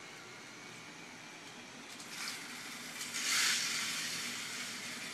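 K'Nex roller coaster car rolling down from the top of the lift along the plastic track, a rushing rattle. It builds about two seconds in, is loudest about three and a half seconds in, then fades.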